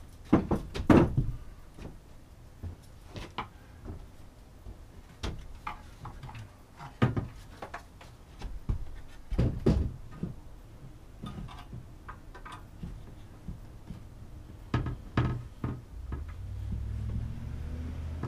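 Wooden wall frame with a cargo net being handled and fitted onto the inside wall of a van: scattered knocks and clunks of wood against the wall and its fittings, the loudest about a second in. A low steady rumble comes in near the end.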